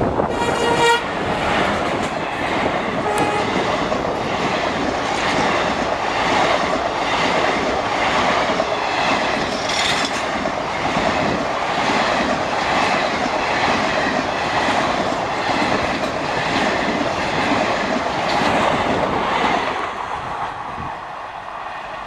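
WDP4 diesel locomotive's horn giving a short blast at the start as the loco passes close by. Then the express's coaches run past with a steady rhythmic clickety-clack of wheels over the rail joints. The sound fades near the end as the last coach goes by.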